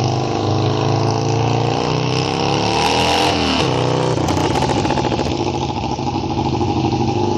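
Motorcycle engine passing by: its note climbs for about three seconds, drops sharply at about three and a half seconds as the bike goes past, then holds a steady pitch as it rides away.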